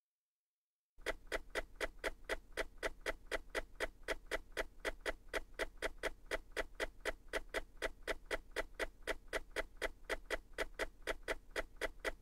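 Clock-like ticking sound effect, about four short ticks a second, starting about a second in and keeping an even pace. It marks the animated timeline's year counter running forward.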